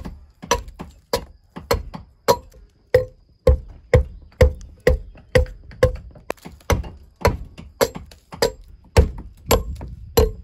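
Steady rhythmic chopping of a short-handled hewing tool into an old chestnut beam, just under two strokes a second, each a sharp woody chop with a brief ring. The strokes are taking the powdery, worm-eaten outer layer off the beam to shape it into a lintel.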